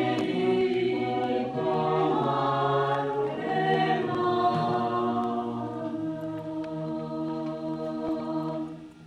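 Small mixed choir singing a cappella in sustained chords, ending on a long held chord that cuts off just before the end.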